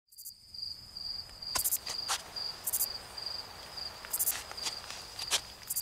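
Crickets chirping in a steady, high, pulsing trill, with several short sharp clicks or snaps scattered through it.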